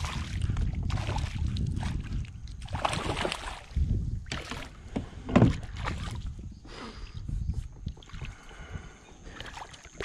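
A hooked peacock bass (tucunaré) thrashing and splashing at the water's surface on the line, a series of irregular splashes with the loudest about five seconds in, over a steady low rumble.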